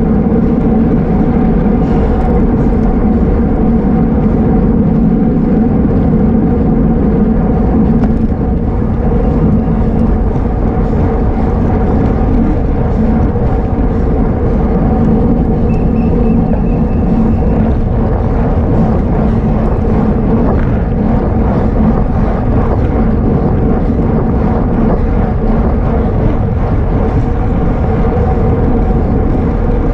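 Wind rushing over the microphone of a bicycle at road-racing speed: a loud, steady rumble with a constant low hum running through it.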